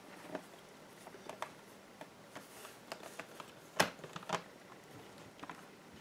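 Light plastic clicks and taps as a laptop's keyboard deck is set down onto its bottom case and handled, with two louder clicks a little past halfway.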